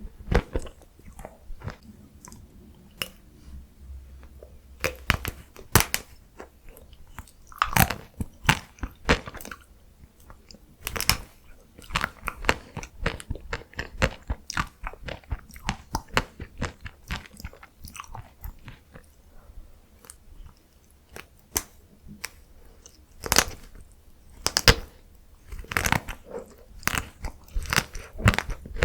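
Close-miked biting and chewing of chocolate-coated ice cream: the chocolate shell cracks and crunches in sharp, irregular bursts, with quieter chewing between them and louder clusters of crunches now and then.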